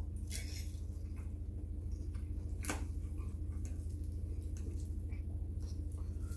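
Close-up eating sounds: soft chewing with a few light clicks of a metal fork against ceramic plates, over a steady low hum.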